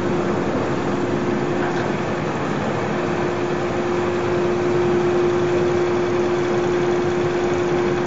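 YES-700GX band sawmill running steadily: dense, even machine noise with a steady hum held underneath.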